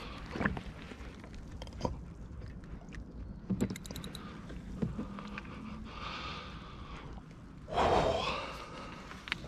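A hooked carp being netted beside a boat: water sloshing and splashing around a landing net, with scattered knocks and clicks from the net and tackle. The loudest part is a short burst of splashing about eight seconds in, as the net is gathered up with the fish in it.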